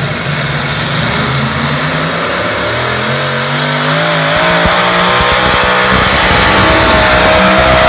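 A tractor-pull pulling tractor's engine running loud and revving up, its pitch climbing and its volume building over the last few seconds.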